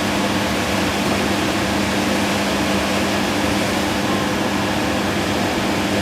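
Industrial warm-air heater running steadily: the rush of its blower and burner over a constant low hum.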